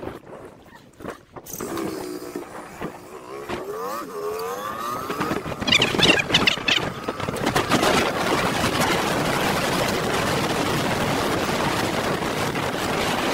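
Motorcycle engine pulling away, its pitch rising in several climbs as it shifts up through the gears, then giving way to a steady rush of engine and wind noise at speed.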